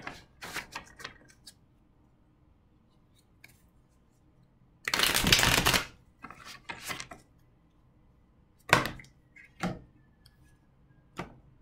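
Tarot cards being shuffled and handled: a shuffle lasting about a second near the middle, with scattered light taps and clicks of cards being cut, drawn and laid down before and after it.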